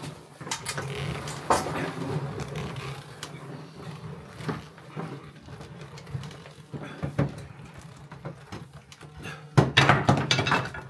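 Wooden paddle knocking and scraping against the wall of a large metal pot while a thick, sticky halva mixture of sugar, egg white and walnuts is beaten. Irregular knocks throughout, louder near the end.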